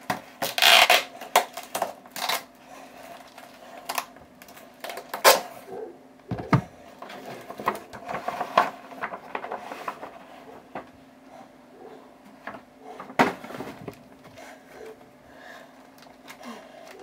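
Cardboard mailer and paper packaging being handled and opened: irregular rustling, scraping and light knocks of card against card, loudest in the first couple of seconds and with single sharp knocks around five and thirteen seconds in.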